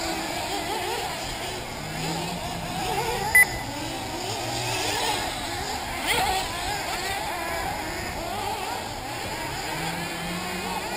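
Several 1/8-scale nitro buggy engines buzzing around the track, their pitches constantly rising and falling as the cars rev and brake. One buggy passes close and louder about six seconds in. A short sharp beep sounds about three and a half seconds in.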